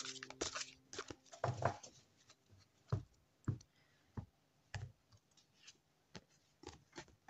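Oracle cards being handled on a cloth-covered table: irregular light taps and clicks as the deck is picked up and cards are moved.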